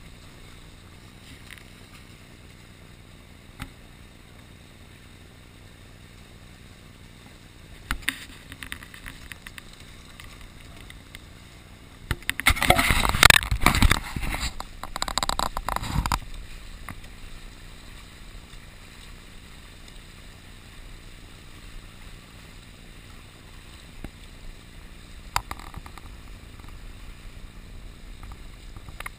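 Steady rush of wind and water past a carbon racing catamaran under sail, with a much louder rushing burst lasting about four seconds in the middle and a smaller one about eight seconds in.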